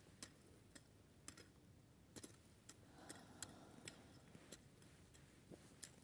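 Near silence with faint, irregular clicks and crackles, about one or two a second: footsteps on dry, ploughed soil and fallen leaves.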